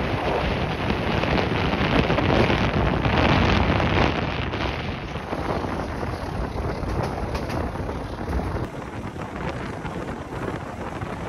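Wind buffeting the microphone, with the running noise of a moving intercity passenger train on the track beneath it. It is recorded from an open door of the train. The sound is a steady rush, somewhat louder in the first half and easing a little after about eight seconds.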